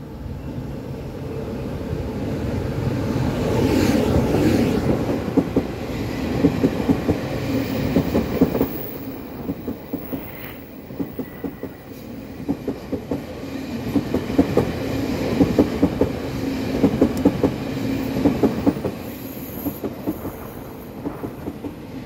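Taroko Express tilting electric multiple unit passing, its rumble building over the first few seconds. Its wheels then click over the rail joints in quick clusters as the cars go by.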